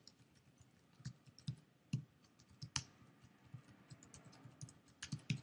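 Typing on a computer keyboard: uneven keystroke clicks, a few louder taps among many fainter ones.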